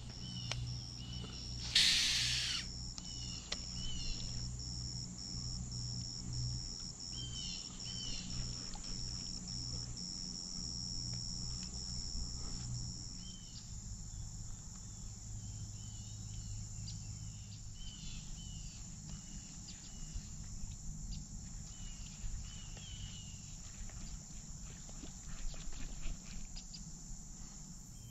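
Steady high-pitched buzzing of insects, with short chirps repeating over it. A brief loud rush of noise comes about two seconds in.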